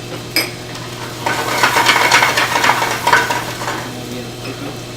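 Onions and spices frying in oil in a pan while being stirred, the utensil scraping and clattering against the pan most busily from about one to four seconds in, over a steady low hum.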